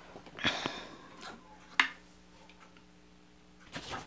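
Quiet room tone with a steady low hum, broken by a brief rustle about half a second in, a single sharp click near the middle, and another short rustle near the end: small movement and handling noises.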